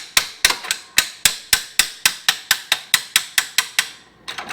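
Hammer tapping a metal mounting bracket of a lawn striping roller to nudge it into line with the mower deck: a steady run of sharp strikes, about four a second, which stops shortly before the end.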